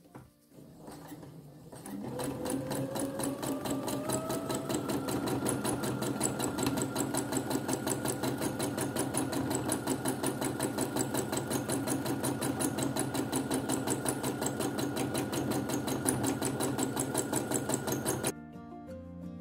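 Sewing machine stitching in straight stitch for free-motion embroidery. It starts about two seconds in, with its motor whine rising as it picks up speed. It then holds steady with a rapid, even needle rhythm and stops abruptly near the end.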